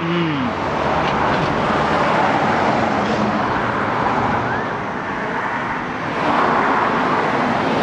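Road traffic noise from passing vehicles, a steady rush that swells again about six seconds in.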